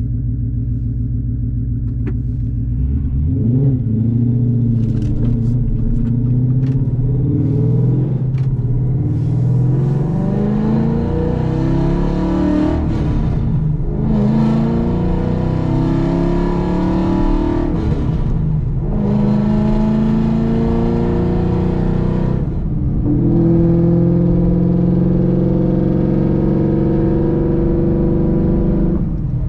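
Ford Mustang Boss 302's 5.0 L V8 through aftermarket side pipes, heard from inside the cabin with the windows up. The engine runs steadily at first, then pulls away with the revs climbing. The pitch breaks and drops about three times at upshifts, and the car then cruises at steady revs near the end.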